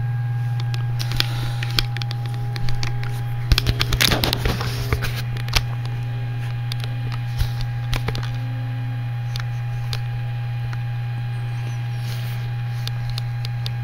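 A steady low hum with a faint constant tone above it, with a cluster of clicks and rustling handling noises about one to five seconds in.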